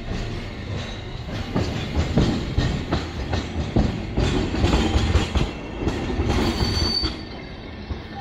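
Hankai Tramway Mo351-type streetcar No. 351 (built 1962 by Teikoku Sharyo) rolling slowly past close by through the depot trackwork. Its wheels clatter irregularly over rail joints and points, and a brief high wheel squeal comes in near the end.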